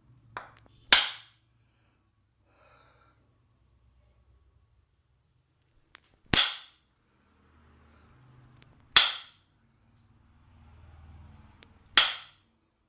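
Four loud, sharp cracks from percussive strikes of a barber's massage, several seconds apart, with a smaller click just before the first.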